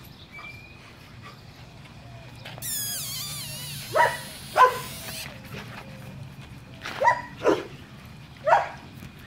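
German Shepherd puppies whining and yipping: a high wavering whine about three seconds in, then five short, sharp yips spread through the rest.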